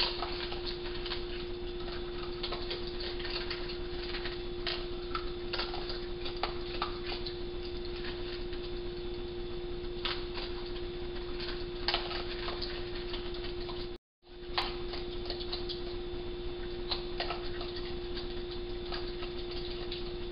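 Raccoons eating dry cat food from a bowl: irregular small crunches and clicks over a steady low electrical hum. The sound cuts out for a moment about two-thirds of the way through.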